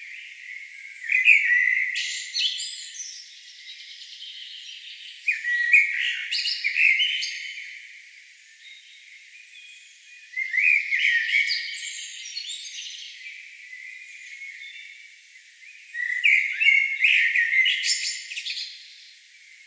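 A songbird singing in four separate phrases of quick chirps and trills, each two to three seconds long, with short pauses between them.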